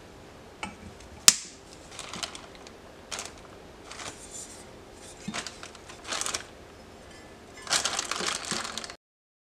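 A plastic zip tie is snipped with end-cutting pliers, giving one sharp snap about a second in. After it come light clatters and rustles as steel stand parts and plastic hardware bags are handled, with a longer rustle near the end.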